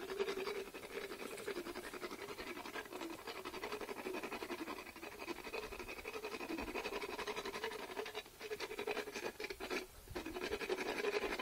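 Equine dental float rasping across a horse's teeth in rapid, continuous scraping strokes, filing down the molars, with brief pauses about eight and ten seconds in.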